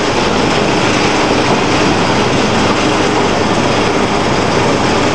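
A steady, loud rushing noise with no change and no gunshots.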